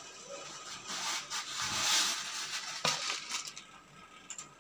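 Dry noodles crunching and crackling as a roll of them is broken up into a steel pot of boiling water. The crackle is loudest about two seconds in, with a sharp click near three seconds.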